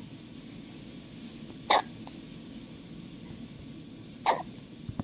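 A newborn baby hiccuping twice, about two and a half seconds apart: short, sharp hiccups over faint steady background noise.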